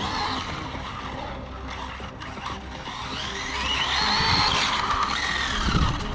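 Arrma Notorious RC car's SSS 1650 kV brushless motor whining as it accelerates hard and backs off, its pitch rising then falling in the middle, with the tyres scrubbing on tarmac and a short loud burst of noise near the end.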